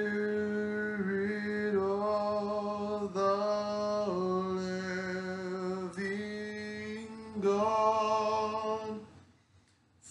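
A solo male voice singing a slow hymn a cappella, holding long notes that step in pitch every second or two. It breaks off about nine seconds in and comes back just before the end with the next phrase.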